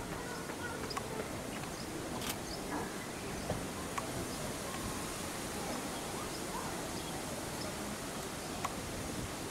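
Steady outdoor background hiss with scattered faint clicks and a few short, faint chirps; no clear sound from the orangutans themselves.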